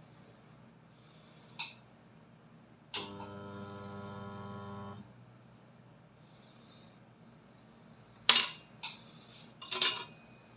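Homemade spot welder built from a microwave oven transformer: a click, then the transformer humming steadily for about two seconds before cutting off. Several sharp snaps follow near the end.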